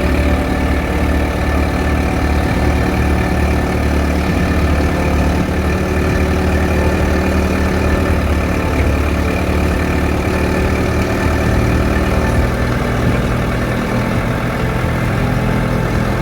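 Backhoe engine running steadily while the machine is driven and turned, its pitch shifting slightly in the last few seconds.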